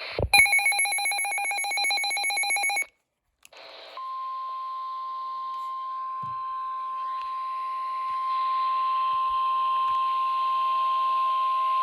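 Emergency Alert System broadcast signalling: a couple of seconds of rapid, chattering digital data tones (the SAME header burst that encodes the alert), then after a short gap the long, steady 1050 Hz NOAA Weather Radio warning alarm tone, which announces that a new severe-weather warning is about to be read.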